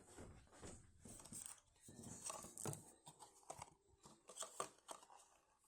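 Faint, irregular plastic clicks and rustling as a puzzle cube's layers are turned by hand.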